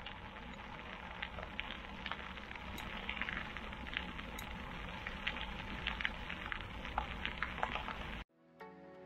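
Mountain bike rolling along a gravel path: tyres crackling over loose grit with scattered clicks and rattles over a low rumble. Near the end this cuts off abruptly and soft music begins.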